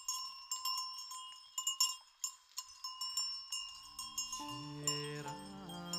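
Bells worn by reindeer clanking irregularly in quick, uneven clinks with a ringing metallic tone. About four seconds in, music with held low notes begins under them.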